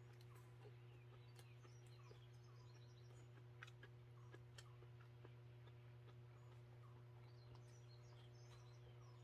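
Near silence: faint scattered chirps of small birds over a steady low hum, with a few light clicks.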